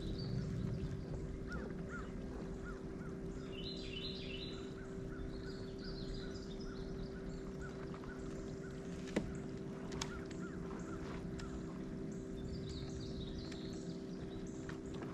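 Birds calling and chirping over a steady low hum, with a single sharp click about nine seconds in.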